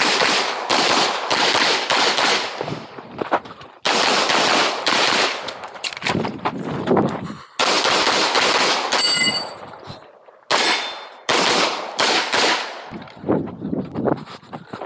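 Close, loud pistol shots from a semi-automatic handgun fired in quick strings of several rounds, with short breaks between the strings as the shooter moves from one shooting position to the next.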